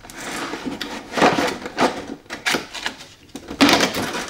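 Board-game box and packaging being handled: a run of short scraping and rustling noises, about five of them, each under half a second.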